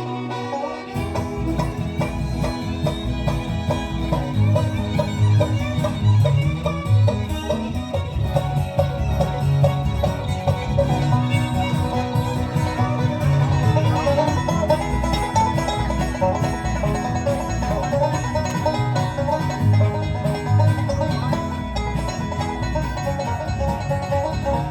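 Bluegrass band playing an instrumental break between verses, with banjo prominent over guitar and fiddle.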